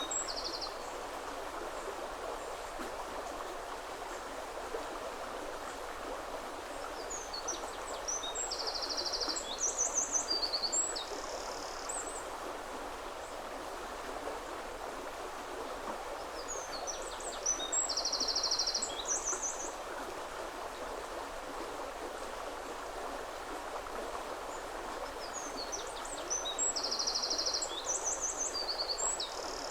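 Steady rush of a woodland river flowing. A songbird sings the same short phrase of quick high notes and trills four times, about every nine seconds.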